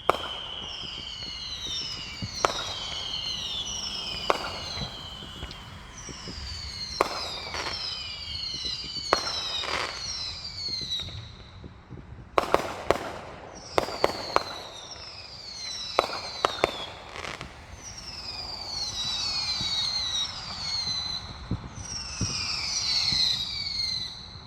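Fireworks going off: a steady run of high whistles, each falling in pitch, overlaid with sharp bangs and pops that come thickest about halfway through.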